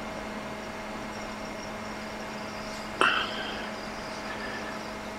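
Hot-air rework heat gun blowing with a steady hiss while a new IC is reflowed onto the logic board. A brief sharp sound comes about three seconds in.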